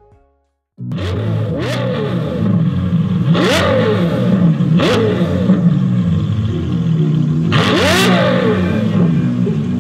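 Ferrari sports car engine revving and accelerating hard, starting abruptly about a second in; its pitch climbs in several revs, each with a sharp crack.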